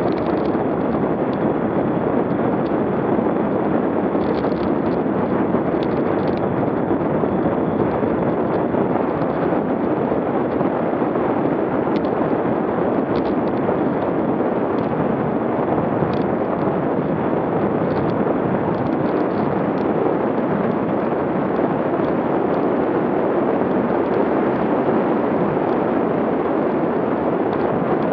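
Wind rushing over a bike-mounted action camera's microphone while cycling at about 25 mph: a steady, dense rush.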